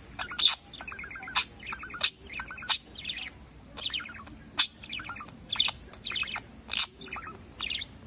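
Male budgerigar warbling: a fast, continuous chatter of short chirps, broken about once a second by loud, sharp, high chirps.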